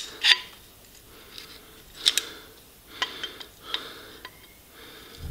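Hand-adjusted locking pliers clicking and scraping as they are set tighter and worked in the hands: about half a dozen sharp metallic ticks spread over a few seconds.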